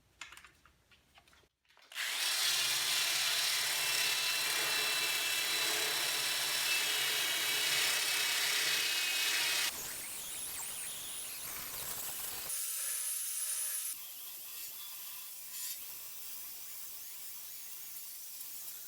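Electric power tool grinding old body filler off a steel car fender: a steady motor hum under a harsh rasp. The sound drops and changes abruptly about ten seconds in, and again a few seconds later.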